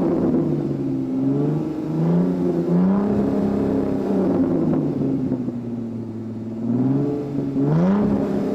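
Ford New Fiesta's petrol engine revved up and down, its pitch sinking through the middle and climbing again near the end. The car was brought in for a drone that the title puts at the timing belt.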